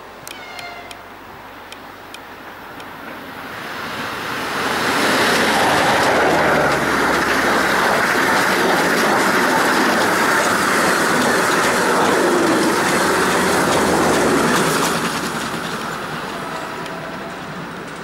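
EP20 dual-current electric locomotive and its Strizh (Talgo) passenger cars passing at high speed: the sound swells over a couple of seconds into a loud, steady rush of wheels on rail, full of rapid clicks, for about ten seconds, then fades as the train moves away.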